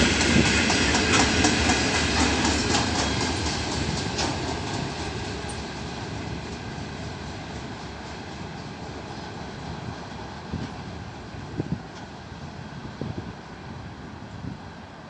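An 80-wagon freight train rolling along the track, its wheels clicking over the rail joints, fading steadily as it moves away. A few separate clanks come near the end.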